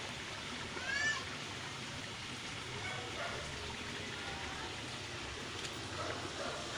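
One short, high, arching call from a small animal about a second in, over a steady hiss.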